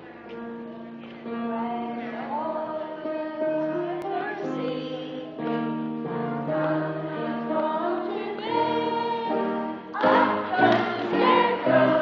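Music with a group of voices singing a song, held notes over an accompaniment, getting louder near the end.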